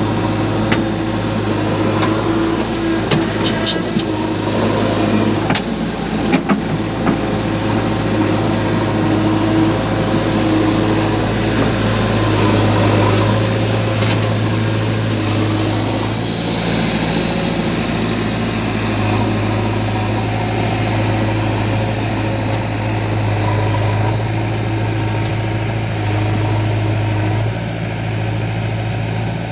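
Diesel engines of a JCB 3DX backhoe loader and a Mahindra 575 DI tractor running steadily, with a few sharp knocks and clatters in the first several seconds.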